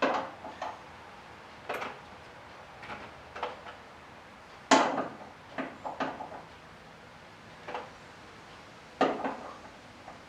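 Hand tools and Torx bits clinking and clattering as they are sorted through in a toolbox drawer. It comes as about ten separate knocks, the loudest about five seconds in.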